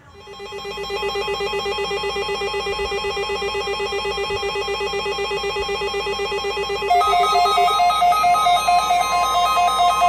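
Several weather alert radios sounding their electronic alarms: a warbling alert tone that swells up and holds steady. About seven seconds in it gets louder, with pulsing beeps over a steady tone, as the radios go off for a broadcast test.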